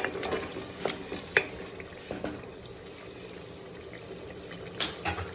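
Wooden spoon stirring mutton and yogurt in an aluminium pressure cooker: wet stirring with a few light knocks against the pot in the first second and a half, then quieter, with another knock near the end.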